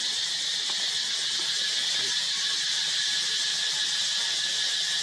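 Steady high-pitched drone of an insect chorus, unbroken and even in level.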